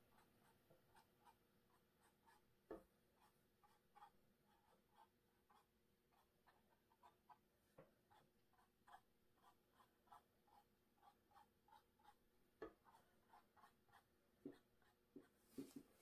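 Faint, irregular taps and scrapes of a filbert paintbrush dabbing paint onto a canvas, about one to two strokes a second, with a few slightly louder knocks.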